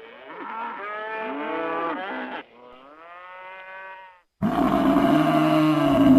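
Buffalo lowing in a series of calls: a bellow about two and a half seconds long with a bending pitch, then a quieter call rising in pitch, then a louder, harsher bellow that starts suddenly about four and a half seconds in.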